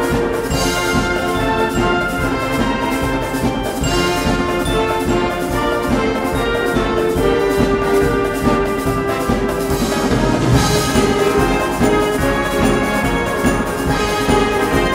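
Wind band playing a modern concert overture: full brass and woodwind chords held over a steady percussion beat.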